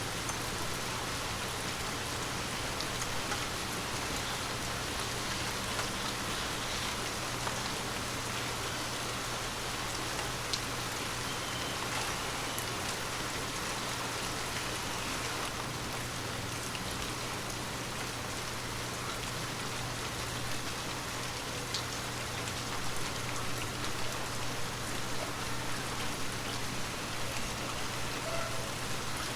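Light rain falling steadily, a dense patter with scattered single drop ticks, under a faint steady low hum.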